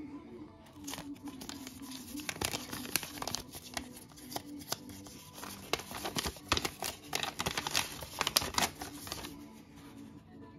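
A sheet of paper crinkling and rustling as it is handled, a run of quick crackles starting about a second in and dying away near the end.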